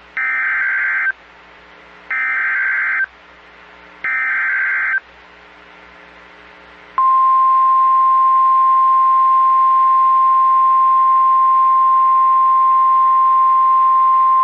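Emergency Alert System SAME header from NOAA Weather Radio: three one-second bursts of screechy digital data, about a second apart. About seven seconds in, the steady single-pitch 1050 Hz weather-radio warning alarm tone starts and holds, signalling that a new warning follows.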